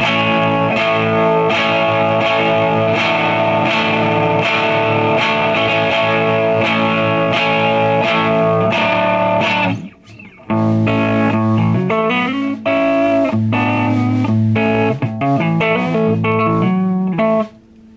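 Electric guitar played through a Tweed 5E3 tube amp with an added master volume turned in, giving a cleaner tone with less phase-inverter blocking distortion. The playing breaks off briefly about ten seconds in, then resumes and stops near the end.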